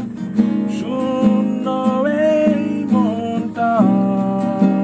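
Two acoustic guitars, one of them a nylon-string classical guitar, played together: chords picked and strummed under a melody whose notes bend and slide.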